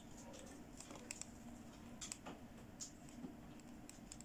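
Faint handling of a plastic fashion doll: scattered light clicks and soft rustles, a few each second.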